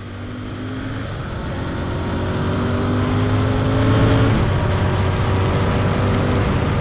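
Royal Enfield Continental GT 650's parallel-twin engine pulling hard through the gears, its pitch climbing and dropping back at shifts about one and four seconds in, growing louder as the bike comes closer.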